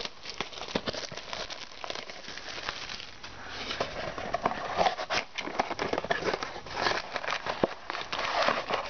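Plastic wrap and cardboard of a trading-card box crinkling and crackling as it is torn open and unpacked by hand, with many small irregular clicks.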